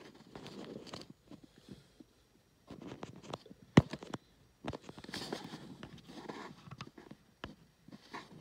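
Irregular rustling and scraping in uneven spells, like a recording device being handled or shifted about with its lens covered, with one sharp click a little before four seconds in.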